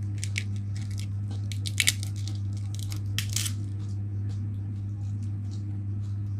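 Raw cabbage being chewed and its leaves torn by hand: a few crisp crackles, loudest about two seconds in, over a steady low hum.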